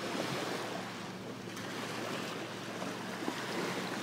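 Small waves lapping on a rocky lakeshore, a steady washing hiss, with the faint steady hum of distant motorboats underneath.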